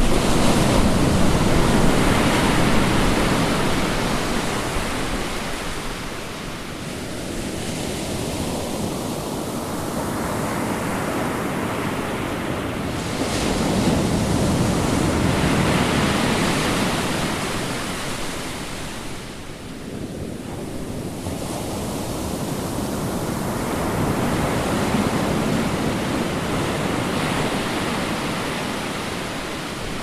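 Ocean surf: waves breaking and washing in, a steady rush that swells and fades in three slow surges about ten seconds apart.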